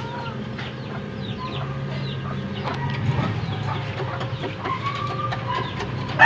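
Chickens clucking and chirping over a low steady hum.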